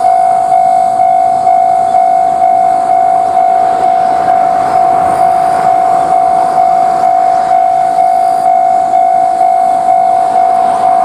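Japanese railroad crossing warning bell ringing its steady 'kan-kan' tone at about two strikes a second, over the rumble of a passing train.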